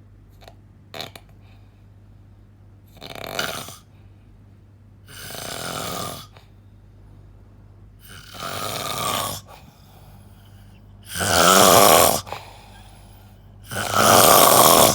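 A person snoring loudly, five snores about every two and a half to three seconds, the last two the loudest.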